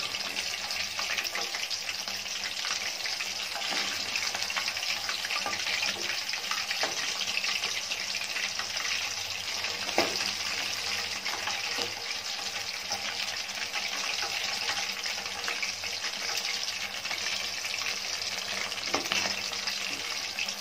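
Chicken 65 pieces deep-frying in hot oil in a steel kadai: a steady sizzle with fine crackling, and one sharp tap about halfway through.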